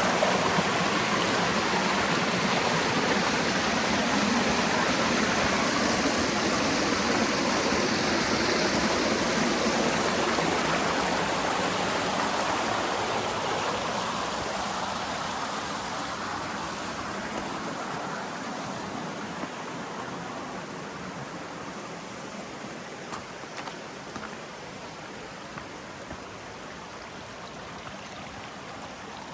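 Stream water rushing and splashing over rocks, a steady even rush that grows gradually fainter through the second half.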